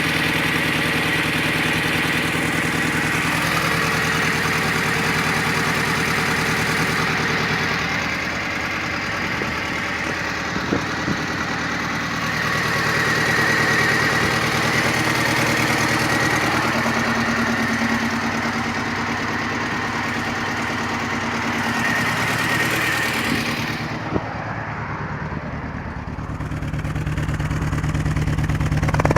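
Supercharged 1.6-litre four-cylinder engine of an R53 MINI Cooper S running while misfiring on cylinder 1, which has zero compression. The engine note shifts a little now and then, with a thin, steady high whine above it.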